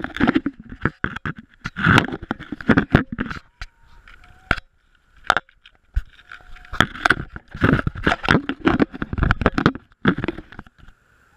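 Hand handling noise on a GoPro camera: fingers rubbing, gripping and tapping the housing right at the microphone, giving loud scraping and clicking. It comes in two spells, with a quieter gap of a few seconds in the middle holding a couple of single clicks.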